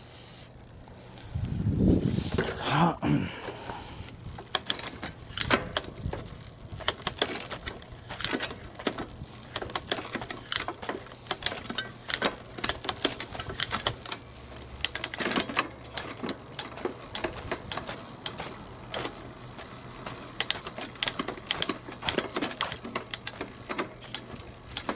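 Irregular clicks and clacks of a bicycle drivetrain being worked by hand: the thumb shifter and front derailleur shifting the chain between chainrings. A brief louder rustling handling noise comes about two seconds in.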